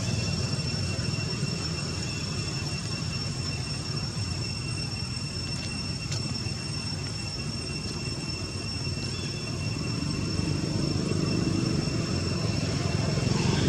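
Steady low rumble with a constant, thin high-pitched whine above it, unchanging throughout.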